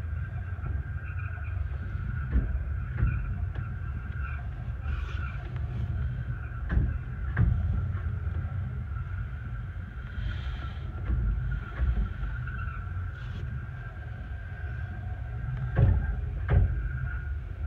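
Rear carriage of a 15-inch-gauge Bure Valley Railway train running along the track, heard from inside the compartment: a steady low rumble with a faint steady whine above it. Sharp knocks come in pairs several times as the wheels cross rail joints.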